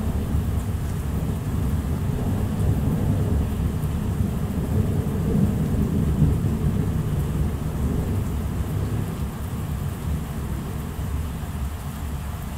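Thunder rumbling low and long, swelling about midway and then slowly fading, with rain falling.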